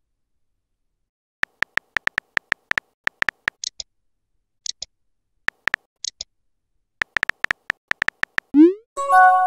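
Messaging-app keyboard sound effects: runs of quick, sharp key clicks as a message is typed out, with a few higher chirps among them, then a short rising swoosh as the message is sent and a brief chime of a few stacked tones at the very end.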